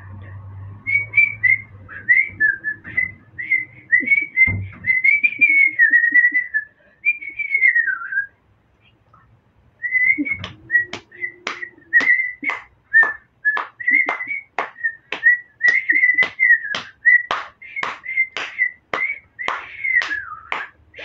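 A whistled tune, one clear line of notes hopping up and down. It breaks off for a moment about eight seconds in, then carries on with a sharp click on nearly every note, about two a second. There is a single low thump about halfway through the first part.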